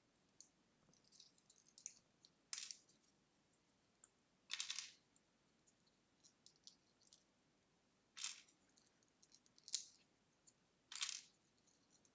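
Small plastic LEGO pieces clicking and clattering as they are pulled apart and dropped during sorting: a handful of short, sharp clatters a second or two apart, with faint ticks in between.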